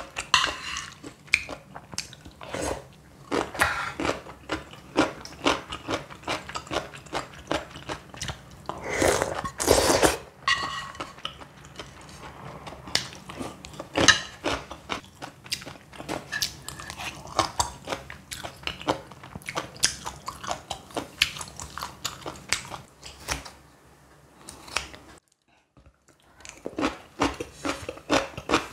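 Close-miked mukbang eating: repeated chewing with many sharp crunches of crisp food, and a louder, noisier stretch about nine seconds in. The sound drops out briefly near the end.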